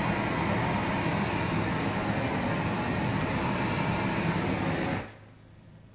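Flamethrower torch burning with a steady rushing roar, then shut off about five seconds in.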